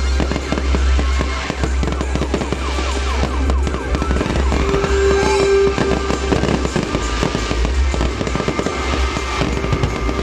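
Aerial fireworks bursting and crackling in quick, dense succession, with music playing underneath.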